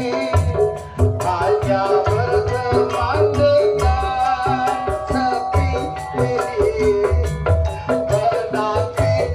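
Jaranan Dor ensemble music: a steady beat of low drum strokes under a sustained, wavering melody, with rattling percussion.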